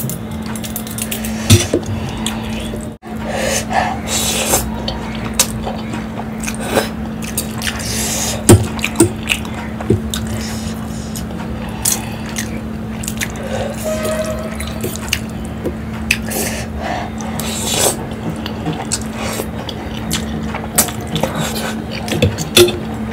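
Close-up wet chewing and slurping of saucy Maggi instant noodles, with scattered sharp clicks of a fork on a steel plate.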